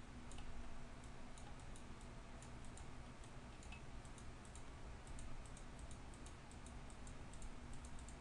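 Faint computer mouse clicks, a few a second and unevenly spaced, as the healing tool is dabbed over the image, over a low steady hum.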